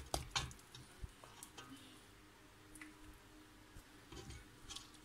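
Scattered faint clicks and taps of a kitchen utensil against a cooking pot as boiled pork ribs are lifted out, several in the first second or so and a few more spread through the rest.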